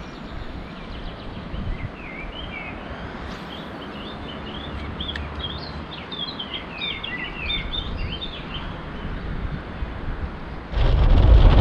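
Small birds chirping and singing in quick short phrases over a low rumble of wind on the microphone. Near the end a much louder, steady rushing noise cuts in suddenly.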